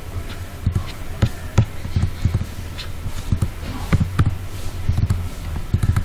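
Irregular taps and dull thumps, about one or two a second, from a computer mouse being clicked and handled on a desk.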